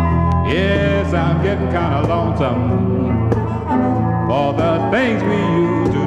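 Blues record played from a vinyl LP in mono: guitar, with a lead line that slides between notes over a steady bass.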